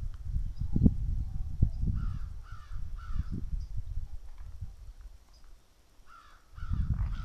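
A crow cawing: three harsh caws about half a second apart a couple of seconds in, and another two or three near the end, over low thumps and rumble.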